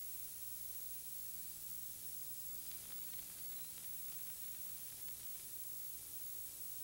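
Steady hiss of an old video tape's sound track with a low electrical hum underneath, and no live sound: the recording's audio has been switched off or has dropped out.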